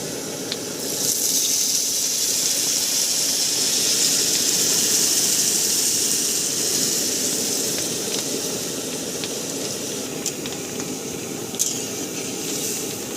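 Water poured into a hot kadai of potatoes frying in oil and spices, hissing and sizzling as it hits the hot pan, the hiss swelling for several seconds and then slowly dying away. Under it runs the steady noise of the cooking stove.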